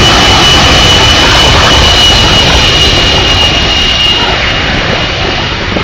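Jet airliner's engines at takeoff power, very loud: a heavy rushing roar with a steady high whine on top that fades out after about three and a half seconds, the roar easing slightly near the end.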